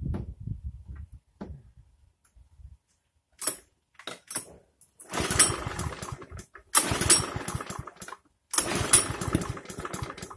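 Einhell petrol lawn mower being pull-started: three hard pulls on the recoil starter about two seconds apart, the engine turning over with a rasping chug each time without catching. The mower has become hard to start, which the owner blames on its automatic choke.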